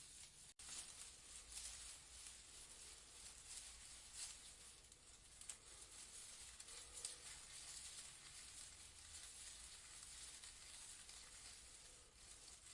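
Faint rustling of leaves in a breeze: a steady soft hiss made of many small crackles. There is a split-second dropout about half a second in.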